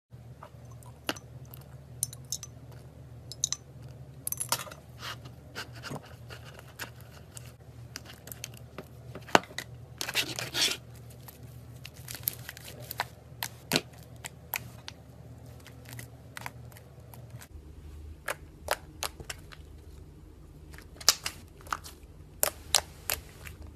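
Homemade slime being stirred with a wooden stick in a plastic bowl, then squeezed and kneaded by hand: irregular sticky clicks and crackles, with a steady low hum underneath.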